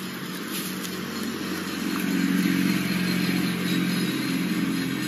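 A motor vehicle engine running steadily, growing louder about two seconds in and then holding.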